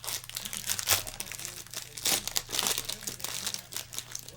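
Trading-card pack wrappers crinkling and tearing as packs are handled and ripped open, in irregular crackly bursts.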